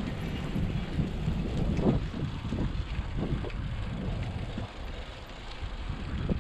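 Wind buffeting the microphone of a camera riding along on a moving bicycle: an uneven low rumble that swells and dips.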